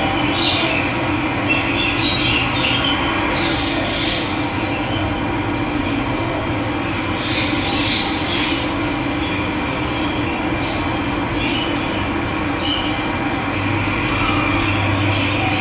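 Steady rush of running water, with birds chirping over it now and then.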